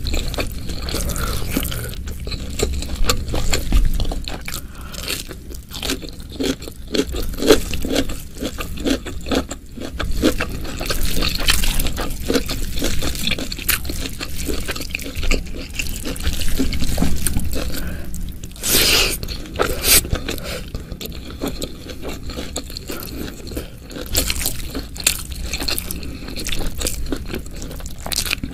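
Close-miked eating: steady chewing and crunching of food with wet mouth sounds and some scraping, and two louder crunches about a second apart late on.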